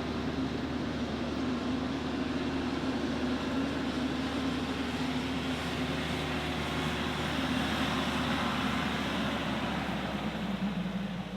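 Tractor engine running steadily with a constant drone.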